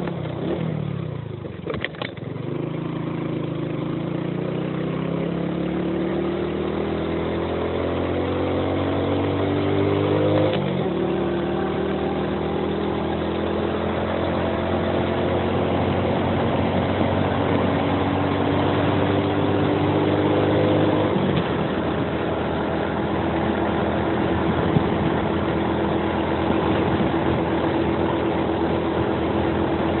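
Suzuki Axelo 125's single-cylinder four-stroke engine pulling uphill under way: the revs climb steadily, drop abruptly about ten seconds in and again about twenty-one seconds in as it changes up a gear, then hold steady, with wind rush over it.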